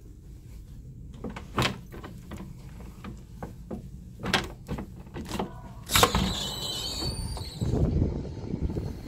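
Balcony sliding glass door being moved along its track: a run of clicks and knocks, the loudest about six seconds in, followed by a steadier outdoor rumble as it stands open onto the balcony.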